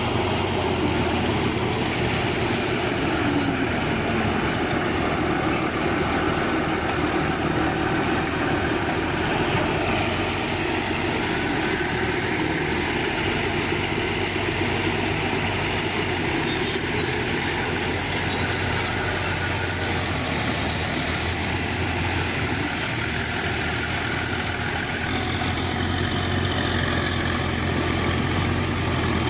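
Bulldozer's diesel engine running steadily, with a strong low hum.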